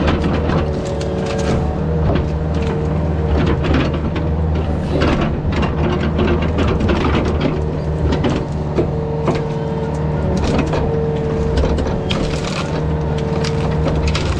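Yanmar VIO50 mini excavator's diesel engine running steadily under working load, with repeated cracking and snapping of wood and branches as the machine breaks through brush and trees.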